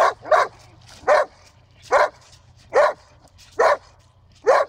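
A White Swiss Shepherd dog barking in a steady series: seven barks, about one a second.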